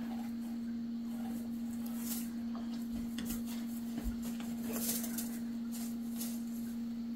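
A cat pawing and scratching at a felt play mat: faint, scattered rustles and soft scratches, a little busier about three to five seconds in, over a steady low hum.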